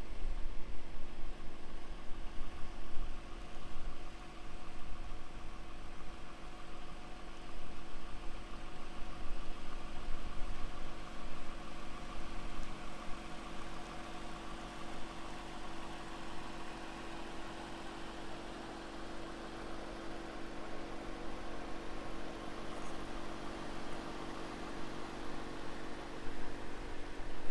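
2020 Toyota Camry TRD's 3.5-litre V6 idling steadily, a low rumble with an even hum.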